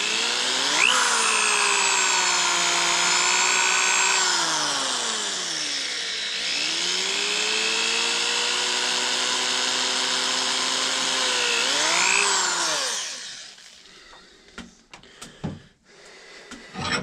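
Corded electric drill running as it bores a pin hole through a ramrod's tip. The motor slows with a falling pitch about four to six seconds in, speeds back up, and stops about thirteen seconds in, followed by a few light knocks.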